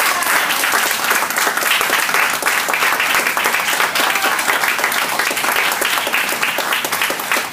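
Audience applauding, a steady round of clapping from a small seated crowd.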